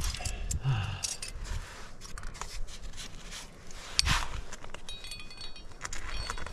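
Metal climbing gear (carabiners and protection on the rack) clinking and rattling as a piece of protection is placed in the rock. There are scrapes, a sharp knock about four seconds in, and a brief metallic ring just after it.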